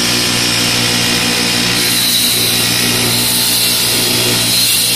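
A CNC wood copy lathe running steadily: a motor hum with a high hiss from the cutter shaving a spinning wooden blank. The hiss gets brighter about two seconds in.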